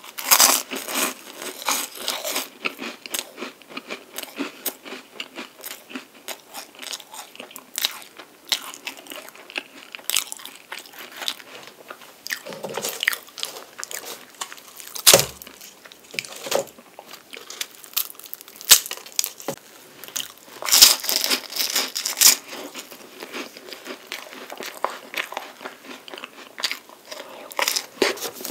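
Close-miked crunching and chewing of flaky puff pastry, chocolate-coated palmier carré, with sharp crisp crackles at each bite and a few louder clusters of crunches about fifteen and twenty-one seconds in.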